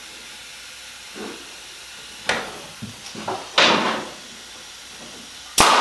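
Pneumatic stapler driving a staple into a willow rod: one sharp, loud shot near the end. Earlier, about two to four seconds in, come a few shorter knocks, some followed by a short hiss.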